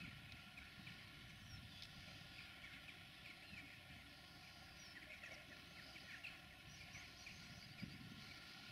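Faint chirping of small birds, many short calls throughout, over a low steady rumble.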